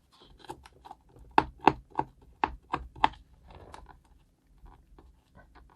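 Irregular sharp taps, clicks and knocks of hands working at a keyboard's cardboard box and packaging while unboxing it. They come thick and fast for the first three seconds, then thin out to a few fainter clicks.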